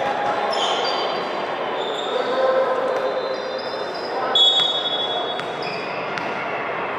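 Indoor volleyball court sounds in a large hall: athletic shoes squeaking on the court floor and a few sharp ball hits, over a steady murmur of crowd voices.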